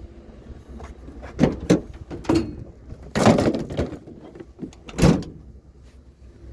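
A run of knocks and clatters as a curbside item is picked up and handled: a few single knocks, then a longer, louder clatter about three seconds in, and one last thump about five seconds in.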